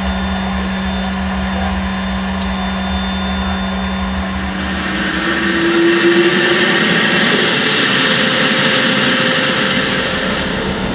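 Steady hum at first, then from about four seconds in a rising turbine whine that climbs steadily in pitch and grows louder: a Boeing 720 jet engine spooling up during engine start.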